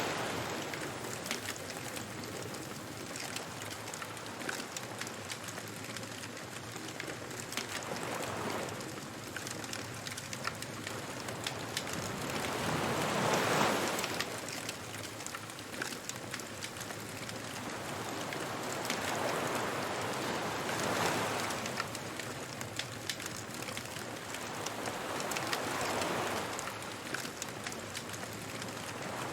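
Beach bonfire ambience: a wood fire crackling steadily, with ocean waves washing ashore about every five to seven seconds.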